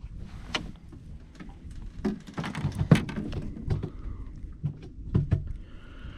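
Handling noises as a crappie is brought into a small boat and unhooked by hand: irregular clicks, taps and knocks, the loudest about three seconds in.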